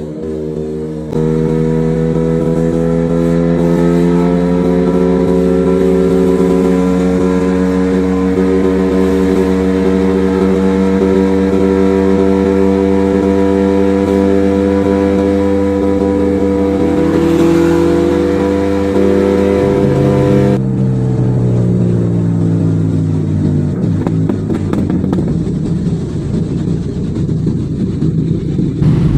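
Motorcycle engine running at steady revs while under way, its pitch creeping slowly up, then the revs dropping away about two-thirds of the way through as the bike eases off, leaving a rougher low rumble.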